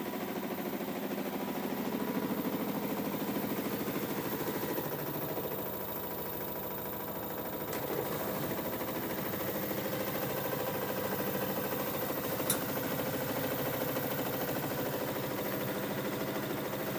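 LG F12A8CDP direct-drive washer-dryer running steadily at speed, a humming drone with a fast, even flutter of vibration, and one sharp click about twelve seconds in. The machine vibrates hard on its spin, which levelling and anti-vibration pads under the feet have not cured.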